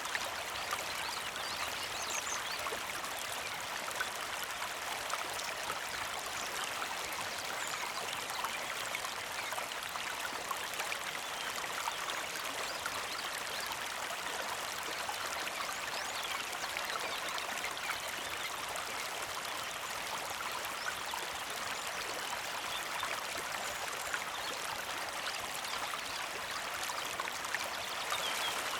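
Small creek flowing steadily over rocks, a constant gentle trickling and babbling of water.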